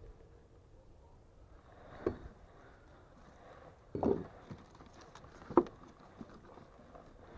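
Dull knocks and footfalls on old wooden boards as someone climbs in through a window frame onto a wooden floor: three separate thumps about two, four and five and a half seconds in, the last the sharpest, with faint scuffing between.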